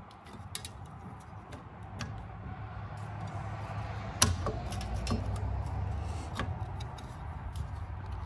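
Scattered light metallic clicks and taps as a Mitsubishi Mirage rear drum brake shoe and its springs are worked loose from the backing plate by hand. The sharpest click comes about four seconds in, over a low steady hum.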